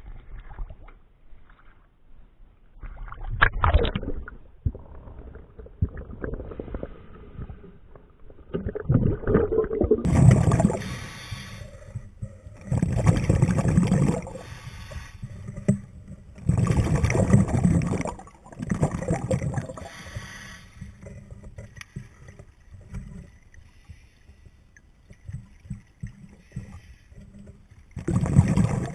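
Water splashing and sloshing at the surface as a diver handles a heavy object, then, after a cut, underwater sound at a diver's camera: loud bubbling bursts of exhaled air from a scuba regulator every two to three seconds, a quieter stretch, and another burst near the end.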